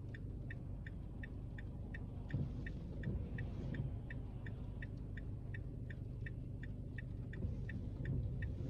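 Car's indicator clicking in an even rhythm, about three clicks a second, over the faint low rumble of the car.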